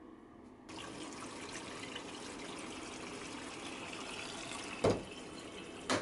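A steady rush of running water starts abruptly about a second in, then two sharp plastic knocks near the end, the first the louder, as the detergent-tank lid on top of a Panasonic drum washing machine is handled and shut.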